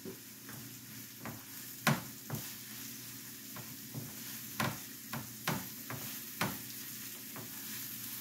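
Chopped onion sizzling steadily in a frying pan, with irregular light clicks and knocks of kitchen utensils against the pan and dishes.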